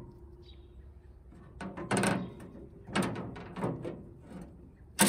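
Steel cooking grate of a Green Mountain Grills pellet smoker flipped over with a short clank, then a handheld grate scraper pushed across it in several short scraping strokes, the last one the loudest.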